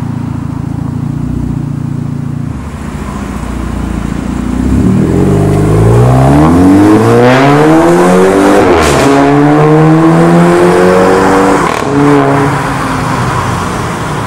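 Audi A5 2.0 TFSI turbocharged four-cylinder through a Fi valvetronic catback exhaust with its valves open, idling steadily and then accelerating hard. The revs climb and drop back at two gear changes, about nine seconds in and again near twelve seconds.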